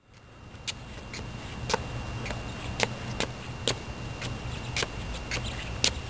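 Sharp clicks about twice a second over a steady low rumble of outdoor microphone noise, fading in from silence at the start.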